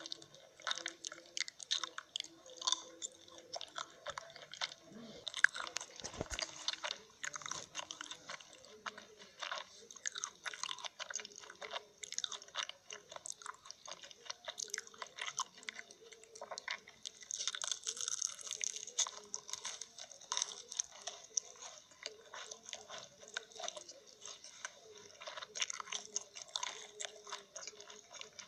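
Someone chewing and crunching food: a continuous run of small, crisp crunches and mouth clicks.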